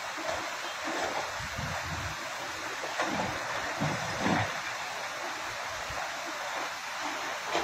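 Steady rush of flowing river water, with irregular low rumbles a couple of times.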